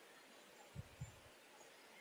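Near silence: room tone, with two faint, soft low knocks close together about a second in.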